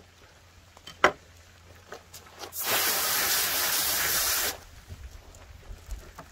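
Pistol-grip garden hose nozzle spraying a jet of water onto a plywood table for about two seconds, rinsing off fish slime and blood; the hiss starts and stops abruptly. A single sharp knock about a second in.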